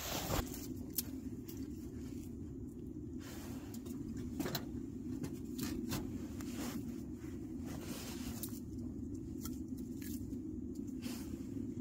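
Small kindling fire crackling in an open-doored folding wood stove, with irregular clicks and snaps as wood is handled and fed in, over a steady low rumble.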